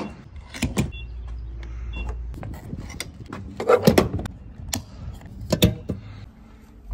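Fuel pump nozzle handled and hung back in its holster at the pump, with a series of clunks and clicks and two short beeps about a second apart, then the car's fuel door pushed shut with a click near the end.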